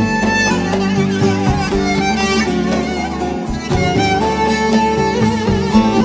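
Instrumental background music with a violin playing the melody over a sustained accompaniment.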